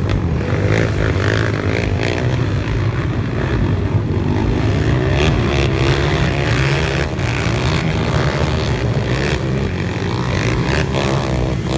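Engines of several racing ATVs running together, their overlapping notes rising and falling in pitch as the quads circle the dirt track.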